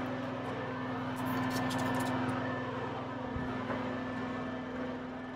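A steady mechanical hum holding one constant tone, with faint handling rustles and clicks and a soft thump about three and a half seconds in.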